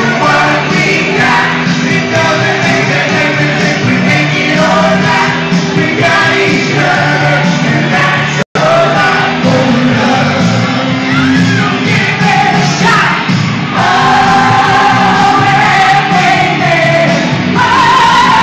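A man and a woman singing a duet into one shared microphone over keyboard accompaniment, amplified through a small PA. The sound drops out completely for an instant about halfway through.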